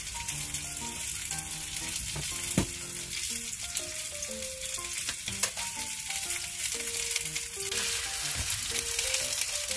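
Oil sizzling in a frying pan, with soft background music; the sizzle grows louder near the end as a slice of bitter melon goes into the hot oil. A couple of light knocks are heard.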